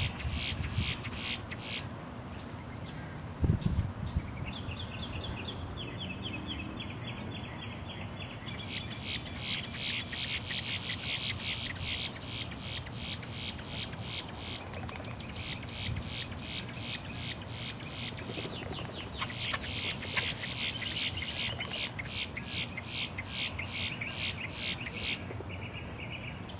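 Male boat-tailed grackles calling in courtship display: long bouts of rapid, harsh repeated notes, about four a second, broken by short pauses. There is one low thump about three and a half seconds in.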